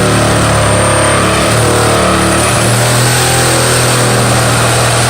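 Skilsaw 13-amp reciprocating saw running steadily at full speed, cutting through a header with an old, dull blade.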